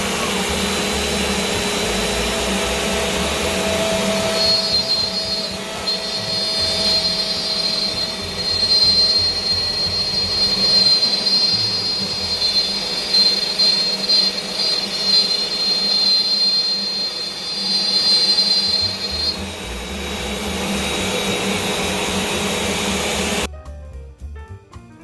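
CNC router spindle running at 18,000 rpm while its bit cuts a test groove in a wood board at a 40-inch-per-minute feed. A steady high whine rides over the motor noise from about four seconds in until about twenty seconds, and the machine sound cuts off suddenly near the end.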